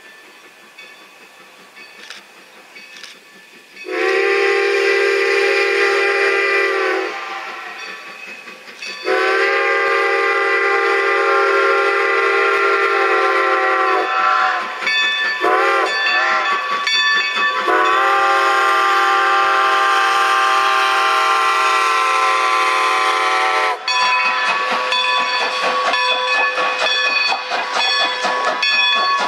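Strasburg Rail Road #90, a 2-10-0 steam locomotive, blowing its steam whistle for a grade crossing: two long blasts, a short one and a long one. Then the train passes close by, its coaches rumbling and clicking over the rail joints.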